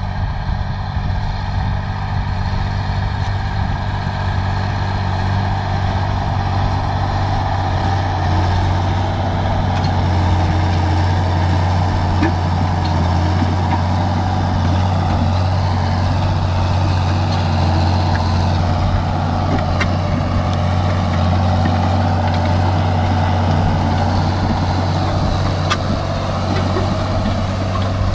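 Ursus 1224 tractor's diesel engine running steadily under load while pulling a disc harrow through stubble.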